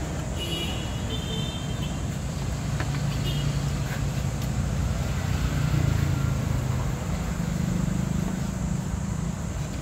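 Low rumble of road traffic, swelling about halfway through, with a few faint high chirps near the start.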